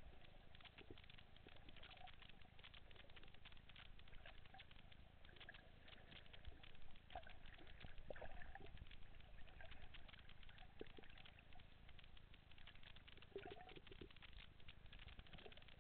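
Faint underwater ambience: a dense, continuous crackle of tiny clicks, with a few short low blips scattered through it.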